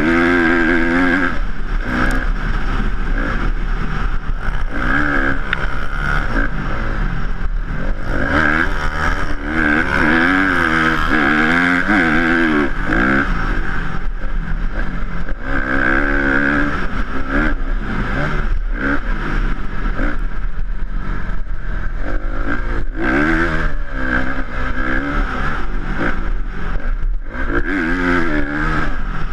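Honda CRF250R dirt bike's single-cylinder four-stroke engine revving hard and easing off over and over under riding load, its pitch climbing and dropping repeatedly.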